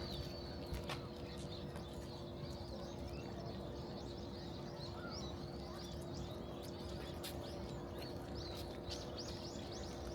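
Small songbirds chirping, scattered at first and then a quick run of repeated chirps near the end, over a steady low hum and background noise.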